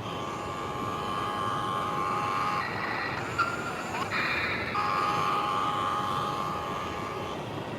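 Excavator's hydraulics whining steadily. The whine cuts out about two and a half seconds in and starts again about five seconds in, over a constant hiss. There is a single sharp knock in the gap.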